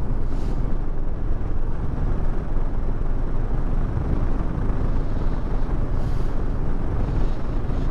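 Steady rumble of a motorcycle ride: the engine's drone mixed with wind rushing over the microphone, even and unbroken.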